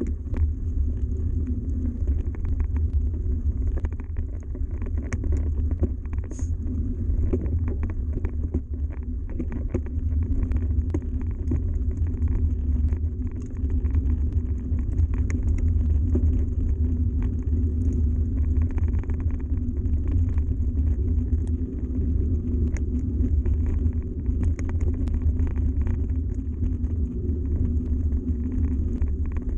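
Mountain bike rolling steadily along a gravel track: a continuous low rumble of tyres on loose gravel, with many small clicks and rattles from stones and the bike.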